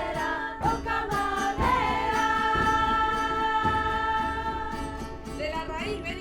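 A song with a singing voice. The voice moves between notes, then holds one long note from about two seconds in, and starts sliding between pitches again near the end.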